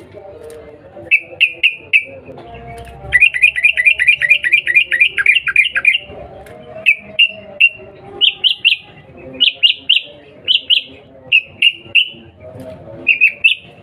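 Yellow-vented bulbul (trucukan) giving sharp chattering "cuk cuk" calls in quick groups of two to four notes. A fast run of about eighteen notes comes from about three to six seconds in.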